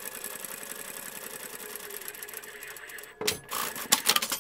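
Sewing machine stitching a seam at a steady fast pace. It stops about three seconds in, followed by a few sharp clicks.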